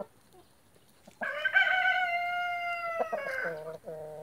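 A Brahma rooster crowing once, starting about a second in. It is one long call that runs fairly level for about two seconds, then drops lower near the end.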